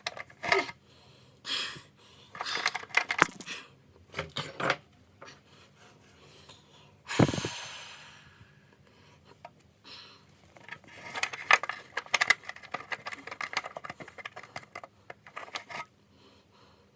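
Metal parts and hand tools being handled while a part is fitted to a motorcycle frame: scattered clicks, scrapes and rattles. One louder clank about seven seconds in rings on briefly, and a run of rapid clicking comes near the end.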